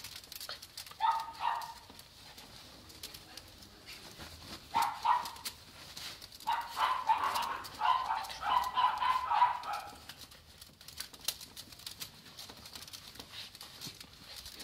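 West Highland White Terriers playing, with high-pitched whining and yipping in several bursts, the longest about seven to ten seconds in. Light clicks and scrapes of claws run underneath as one dog scrambles up the wicker chair.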